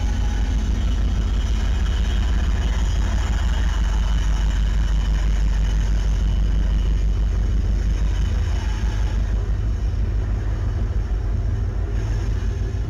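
A train rumbling past with its diesel locomotive engines running, loud and steady; the higher hiss thins out about nine seconds in.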